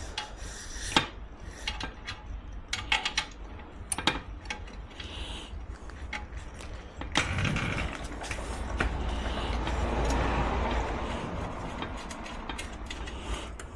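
Hands working on motorcycle exhaust parts and a threaded O2 sensor: scattered sharp metal clicks and knocks, then a steadier rustling, scraping handling noise from about halfway through.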